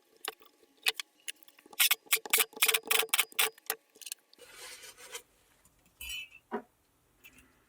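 Small metal pump parts and hand tools clicking and tapping against each other, with a quick run of sharp clicks in the middle, then a brief rubbing scrape and a couple of light knocks.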